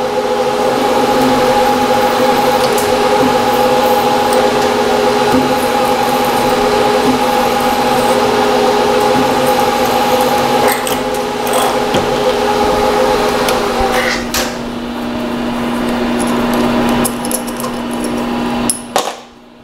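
Milling machine spindle running while a twist drill cuts a row of holes in a soft copper vise jaw: a steady whine over a cutting hiss, with a few sharp clicks. Part of the whine drops out about two-thirds of the way in, and the machine stops abruptly near the end.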